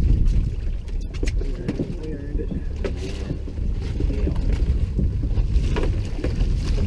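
Wind buffeting the microphone over a steady low rumble of a small boat on the water, with a few light knocks.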